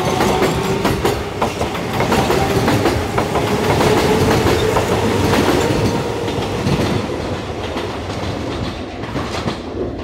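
Kintetsu electric train running past on the Minami-Osaka Line, its wheels clacking over the rail joints under a humming tone, fading away over the last few seconds.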